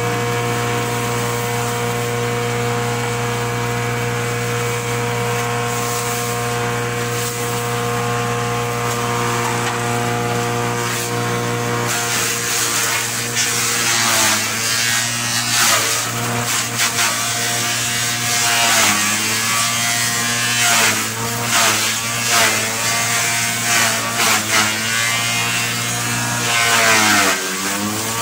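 Electric forage chopper running steadily, then chopping grass stalks as they are fed in from about twelve seconds in: a coarse shredding noise joins the motor, and its pitch sags briefly each time a bundle loads the blades, with one deep slowdown near the end.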